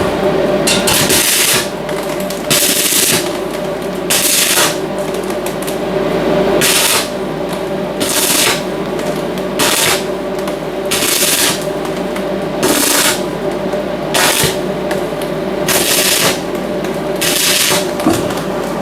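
Electric welder laying short weld bursts on a door frame, each a crackling hiss lasting under a second, repeated about every one and a half seconds, over a steady hum.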